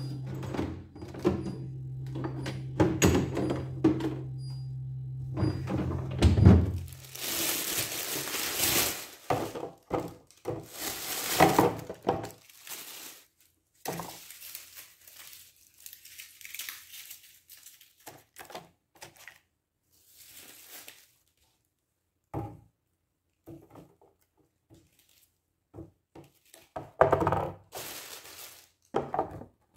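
Clear plastic fridge storage bins and food packages being handled, with light plastic knocks and thunks and bursts of crinkling and rustling. A steady low hum runs under the first several seconds and then stops.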